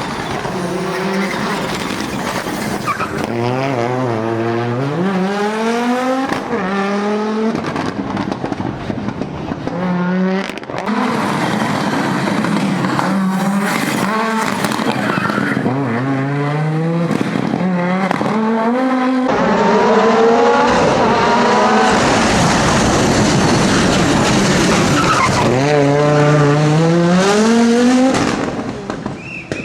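Audi Quattro S1 rally car's five-cylinder engine at full racing effort, its pitch climbing and falling again and again as it accelerates hard through the gears between corners. A loud rushing noise joins it through the latter part, with tyre squeal and skidding.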